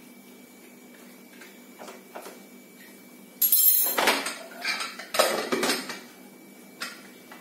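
Pressure cooker lid being fitted and closed on the metal pot: a burst of metal scraping and clanking about halfway through, lasting two to three seconds, with a lighter clink near the end.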